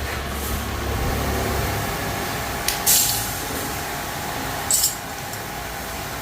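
A low rumble, then two short, sharp hisses about two seconds apart, the first a little longer and the loudest.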